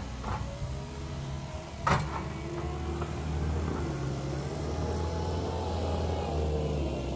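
Cat 289D compact track loader's diesel engine running as the machine drives past, its pitch rising and falling with load, and one sharp clank about two seconds in.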